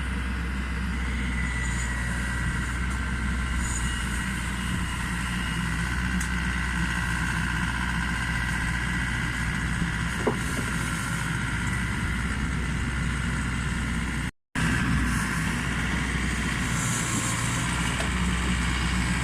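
Iseki HC 80P combine harvester's diesel engine running steadily, with a faint whine above it. The sound cuts out for a moment about fourteen seconds in.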